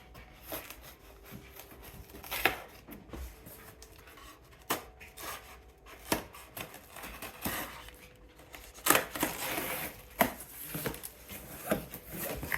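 Cardboard shipping box being cut and torn open by hand: scattered knocks and scrapes, with a stretch of tearing and rustling of tape and cardboard about nine seconds in.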